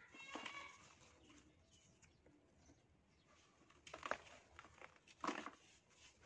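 Dry moulded sand crumbled by hand, the loose sand pattering and trickling through the fingers, with two louder crunches about four and five seconds in as chunks break apart.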